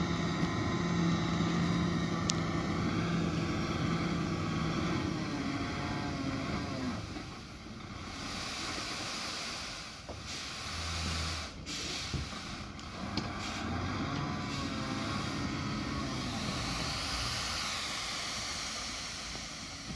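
Dump truck's diesel engine running as its hydraulic hoist tips the loaded bed and the sand slides out. The engine holds a steady note at first, then its revs dip and rise twice, with a few knocks near the middle.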